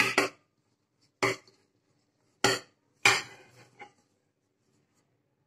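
Upturned aluminium cake tin knocked against a glass serving plate to loosen the baked cake: about five sharp knocks, two close together at the start and then roughly one a second, stopping a little before the four-second mark.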